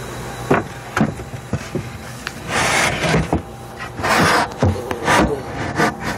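Handling noise on a bare wooden subwoofer box: a series of light knocks and two longer scraping rubs, one a little before the middle and one about two-thirds through.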